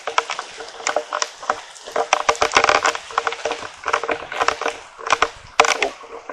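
Raindrops striking the microphone directly, a dense, irregular run of sharp pops and taps over the hiss of falling rain; a very unpleasant sound.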